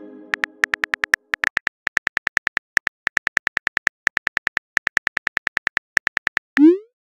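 Phone keyboard typing clicks from a texting-story app: rapid ticks, several a second, broken by short pauses as a message is typed. A chime fades out at the start, and near the end a short rising whoosh plays as the message is sent.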